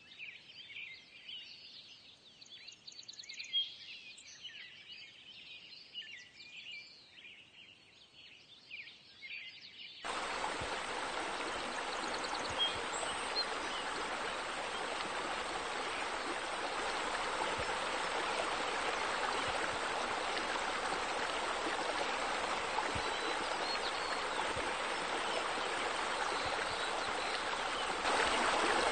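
Birds chirping and calling for about the first ten seconds, then a sudden change to steady rushing, splashing water, which steps up louder near the end.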